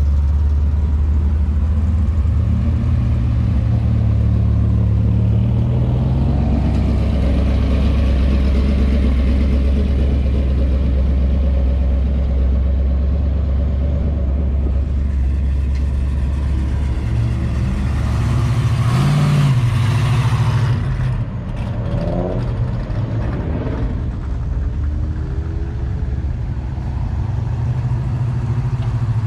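Classic cars' engines rumbling low and steady as they drive off one after another. About two-thirds of the way through a car passes close and loud, and engines rev up in short rising pulls after it.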